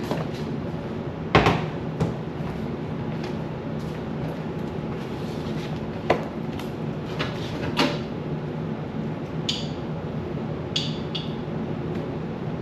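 Scattered knocks and clatter of things being handled while a refrigerator is cleaned: shelves, containers and cupboard-like doors bumping, with a few short hissy sounds near the end, over a steady low hum.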